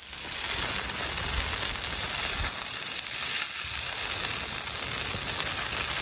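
Takoyaki sizzling steadily in the oiled wells of a takoyaki plate over the heat. The sizzle fades in at the start, with a low rumble underneath.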